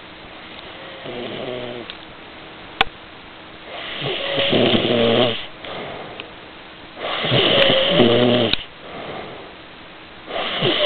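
A person snoring: a faint snore about a second in, then three loud, long buzzing snores about every three seconds. There is a single sharp click between the first two.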